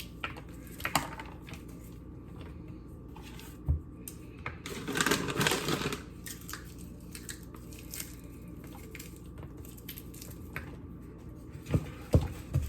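Walnuts being crushed into smaller pieces: scattered small cracks and crunches, a thump a little before the middle, and a longer stretch of crunching around the middle.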